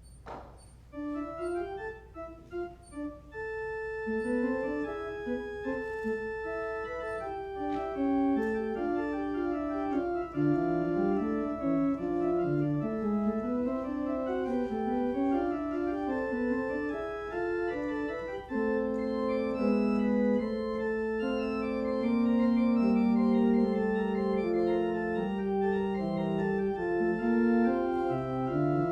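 Organ playing a slow piece: a few separate notes at first, then continuous melody and sustained chords, with lower held notes coming in about two-thirds of the way through.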